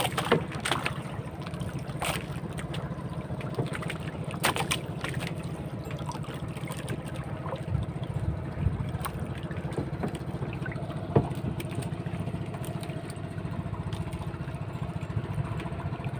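Small boat engine running steadily with a fast low chug, over water washing along the hull of a wooden outrigger boat. A few sharp knocks come from handling gear on board.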